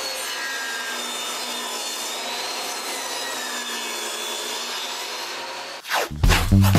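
Benchtop table saw ripping a strip off a 1-inch cedar board, the blade running steadily through the cut for about six seconds. Music starts near the end.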